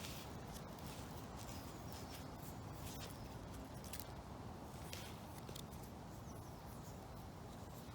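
Quiet woodland ambience: a steady low rush of gusty wind, with a few faint scattered clicks.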